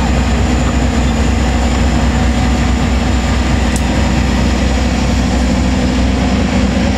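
Diesel locomotive engine running with a steady, deep drone while it shunts a rake of passenger coaches.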